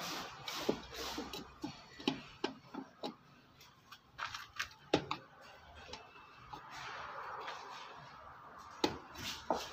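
Irregular small clicks and light taps of hand tools against the metal base and heating plate of an electric rice cooker being taken apart, with a softer stretch of scraping about seven seconds in.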